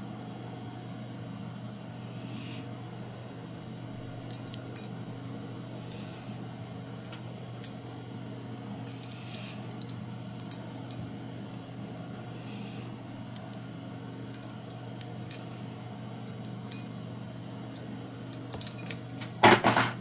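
Faint, sharp metallic clicks and ticks at irregular intervals as small fly-tying tools and the thread bobbin are handled at the vise, with a louder burst of handling noise near the end. A steady low electrical hum lies underneath.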